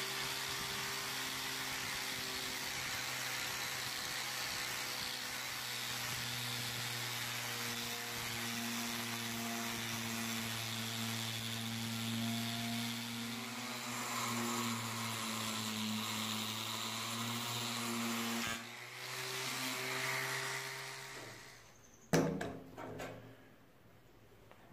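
Angle grinder with a sanding disc running steadily, its motor humming under the gritty hiss of the abrasive on the steel face of an axe head. The sound changes at about 18 seconds, and the grinder stops at about 21 seconds. A couple of sharp knocks follow near the end.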